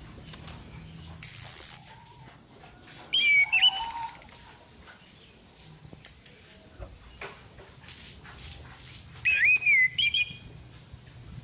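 Female orange-headed thrush (anis kembang) calling, played as a lure sound for caged males: a harsh hissing note about a second in, then bursts of gliding whistled notes mixed with rapid high chirps a few seconds in and again near the end.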